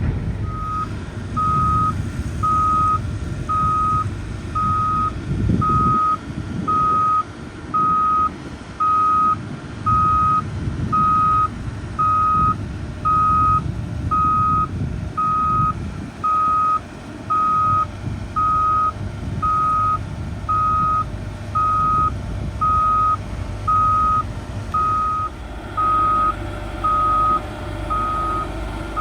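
Back-up alarm on a heavy earthmoving machine beeping steadily about once a second while it reverses, over the low rumble of its diesel engine.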